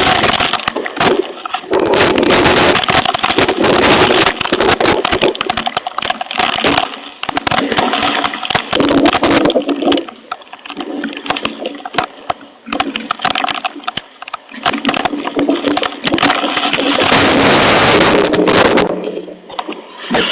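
Hailstones pelting down in a thunderstorm, a dense clatter of sharp hits on a hail protector. It comes in surges, heaviest near the start and again toward the end, easing in between.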